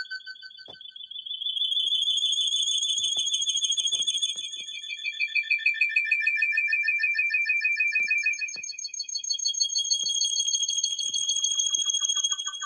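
High-pitched electronic alarm-like tones, several pitches sounding together and pulsing rapidly, with the pitches shifting twice.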